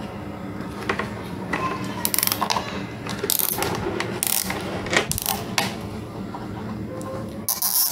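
Plastic watering-can parts and a metal tool being handled and worked together, giving irregular clicks and scrapes over a steady low hum.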